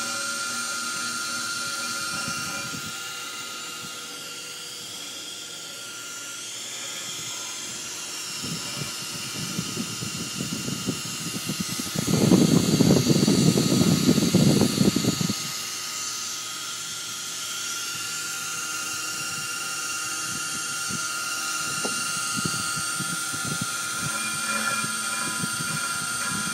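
Sherline CNC milling machine running with a steady motor whine and hiss, and a louder, rough, noisy stretch of about three seconds midway.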